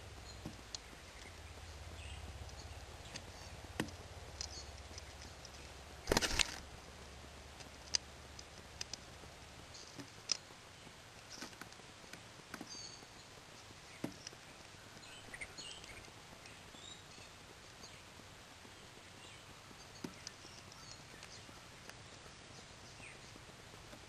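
Scattered short clicks and taps of birds pecking at seed on a feeder tray close to the microphone, with a louder clatter of knocks about six seconds in. Faint high bird chirps sound in the background.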